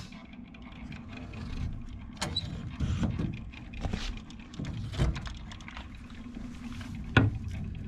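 Handling noise: a steady low rumble with scattered light knocks and clicks, and one sharp click about seven seconds in.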